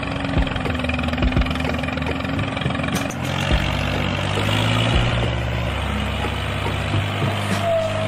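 Tractor engine running steadily with a low droning hum and irregular knocks, its pitch shifting slightly about three seconds in.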